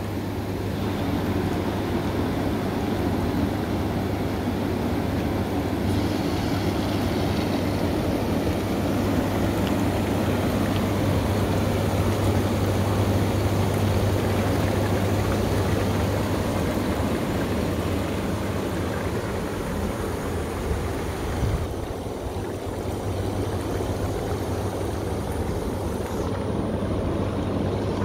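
Fiji Elite hot tub running with its jets on: a steady pump-motor hum under churning, rushing water.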